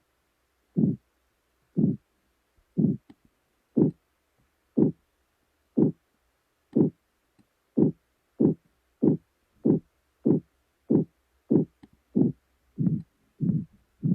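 Computer-generated pulsatile tinnitus sound: a low pulse repeating like a heartbeat, about once a second, quickening to nearly two a second about eight seconds in.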